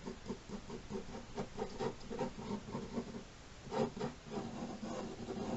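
Quick, repeated sketching strokes of a drawing tool scratching across paper, several a second, with a louder burst of strokes a little under four seconds in.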